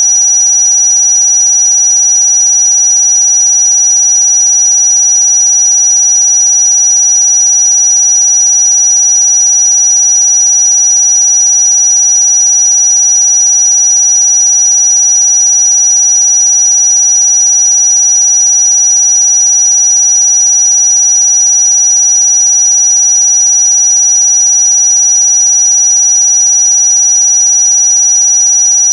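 Loud, unchanging electronic tones held without a break, several pitches at once with the strongest very high-pitched: a synthetic tone track meant to be played against noisy neighbours.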